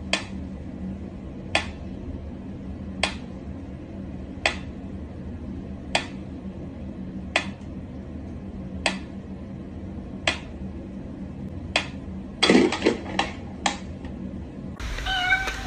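Mechanical pendulum metronome ticking slowly and evenly, about one tick every second and a half, over a low steady hum. About twelve and a half seconds in, a cat gives a short cry, and a few quicker knocks follow close together.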